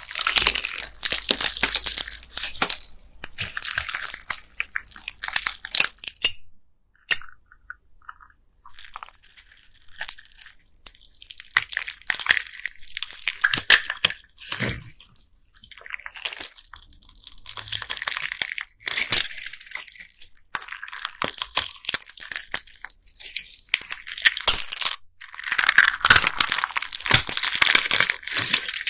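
Handmade bead-filled slime being squeezed and kneaded by hand: dense crunchy crackling and clicking of the beads, in stretches of a few seconds, with a near-quiet pause about seven seconds in.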